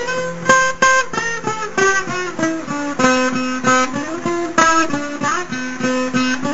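A guitar playing an instrumental passage of a sertanejo song: single plucked notes in a quick melodic run, several a second, over bass notes.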